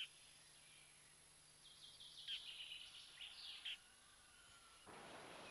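Faint chirping of a small bird, a quick string of short high calls lasting about two seconds. Near the end a steady outdoor hiss sets in.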